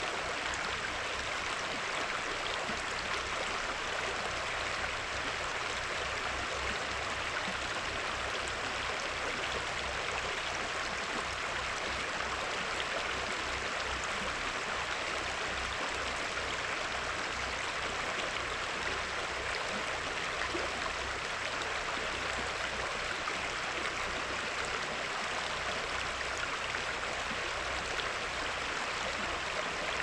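Shallow river running over a rocky riffle: a steady hiss of flowing water that never changes.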